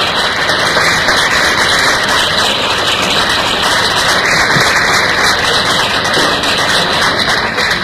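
Audience applauding: dense, steady clapping that dies down near the end.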